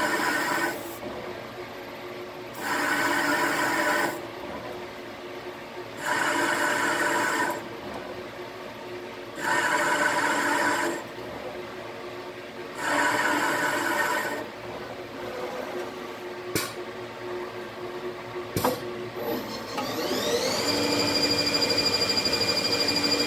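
Haas TL-1 CNC lathe running with its spindle turning an AR-15 barrel for threading. Five short hissing bursts about every three and a half seconds come from cutting fluid sprayed from an aerosol can onto the threads. Near the end a whine rises and levels off into a steady tone as the spindle speeds up.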